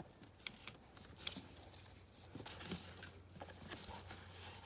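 Faint rustling and scattered small clicks as a child car seat's ISOFIX strap is pulled tight by hand. A low steady hum sits underneath.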